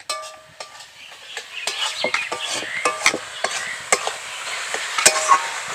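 A utensil scraping and clicking irregularly against a kadai as grated coconut and sugar filling is stirred over the fire, with a soft sizzle that grows louder about two seconds in.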